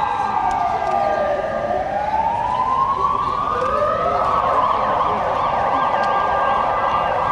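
Emergency vehicle sirens wailing, the pitch sliding slowly down and back up. A second siren joins about three and a half seconds in, and the sound turns to a quicker warble.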